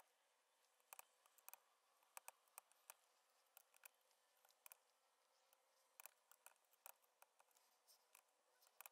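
Faint, irregular small metallic clicks of a hand tool on the camshaft cap bolts of a Kawasaki ZX-7R cylinder head as they are cracked loose a quarter turn at a time, with a few clicks coming close together about a second in, about six seconds in and near the end.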